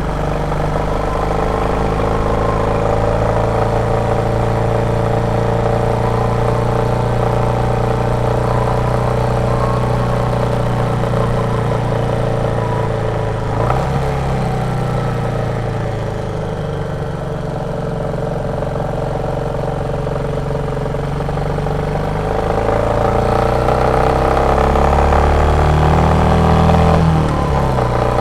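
Royal Enfield Meteor 350's single-cylinder engine running on the move, steady with its thumping beat. About halfway through the engine note changes suddenly, then sinks and climbs again, and near the end the revs rise and then drop sharply.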